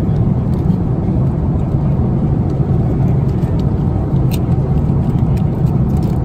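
Steady low roar of an Airbus A330-300's cabin in flight: engine and airflow noise, with a few faint clicks above it.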